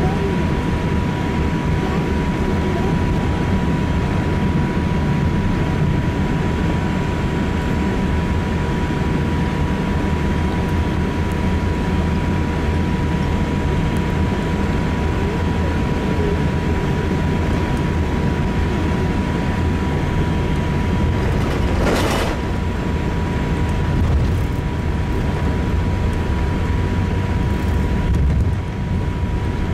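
Cabin noise of a Boeing 787-8 airliner taxiing after landing: a steady low rumble with a thin steady whine above it. A brief noisy sound comes about three-quarters of the way through.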